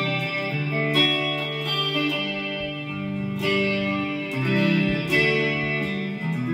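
Electric guitar music: chords strummed and left ringing, with new chords struck about a second in, near the middle, and again just past five seconds.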